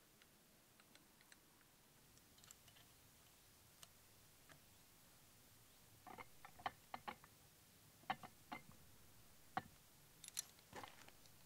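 Faint small metallic clicks and taps of an Allen key working the socket-head screws that hold a steel jaw plate onto a vise. The clicks are sparse at first, then come in a closer run of sharper clicks from about six seconds in.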